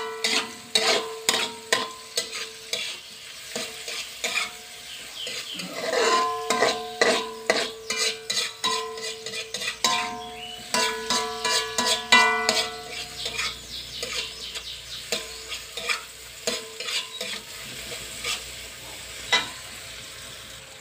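Sliced shallots, garlic, chillies and tomato sizzling in oil in a metal wok while a metal spatula scrapes and taps against the pan, with many quick clicks and scrapes and the wok ringing at times. The seasoning is being sautéed until fragrant.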